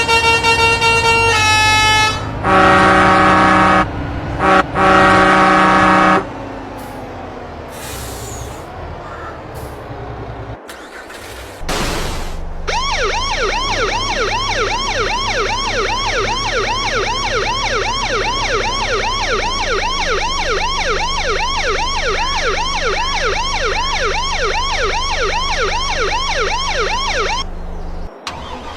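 A truck's multi-tone 'telolet' horn playing a quick stepped run of notes, then two long, loud chord-like blasts. After a quieter stretch of engine running, a fast-repeating rising siren whoop sounds about three times a second for some fifteen seconds over a steady engine drone, then cuts off.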